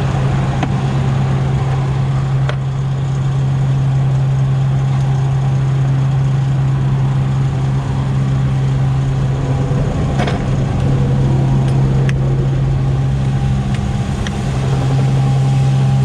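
Peterbilt semi truck's diesel engine idling with a steady low hum, with a few light knocks now and then.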